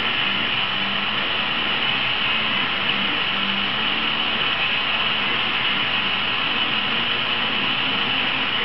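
Handheld gas torch burning, a steady hiss of its flame.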